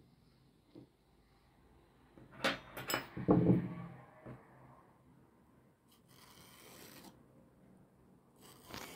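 A brief clatter of kitchen utensils about two and a half seconds in, the loudest part. Then two scraping strokes, near the end, of a metal fork's tines dragged lengthwise along the skin of a raw zucchini to score it.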